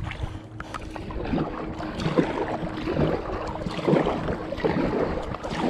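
Kayak paddle strokes splashing in the water about once a second, over wind rumbling on the GoPro's microphone, with a faint steady hum underneath.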